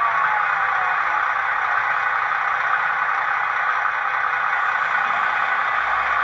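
Model MPV's DCC sound decoder, played through a small megabass speaker under the model. A siren winds down in pitch and fades within the first second, then the steady drone of the MPV's auxiliary power unit runs evenly.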